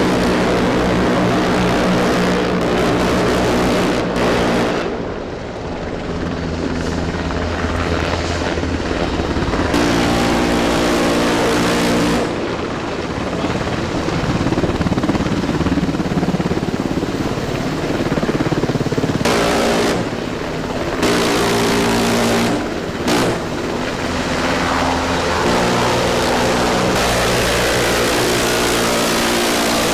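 Black Hawk helicopter's rotors and turbine engines running loudly, a steady hum at several pitches over a rushing noise, changing abruptly several times along the way.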